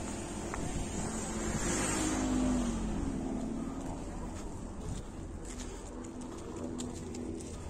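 A vehicle passing on a street, its noise swelling about two seconds in and fading, over steady outdoor background noise, with a few faint clicks in the second half.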